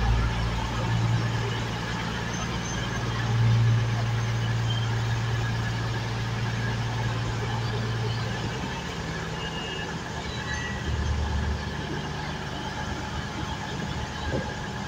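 Class 220 Voyager diesel multiple unit's underfloor diesel engines running as the train pulls slowly into the platform, a steady low drone. About eight or nine seconds in the engine note drops lower and quieter as the train slows to a stand.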